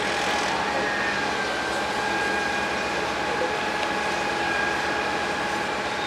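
Construction machinery running steadily at the pile-driving rig: a constant drone with a steady high whine, and no hammer blows.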